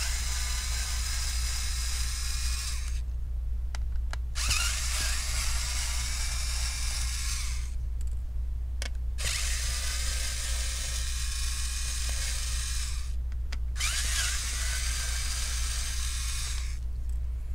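Electric precision screwdriver whirring as it backs out the screws holding down a laptop's CPU heatsink. It runs in four spells of about three seconds each, with short pauses between them.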